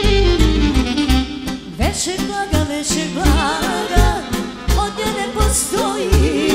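Live band music with a steady beat. About two seconds in, a woman's voice comes in singing an ornamented, wavering melody with strong vibrato.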